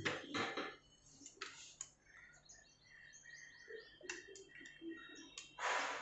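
Rustling and knocking bursts as the ceiling fan's motor body and downrod are handled and lifted, loudest just before the end, with a run of short high chirps from small birds in between.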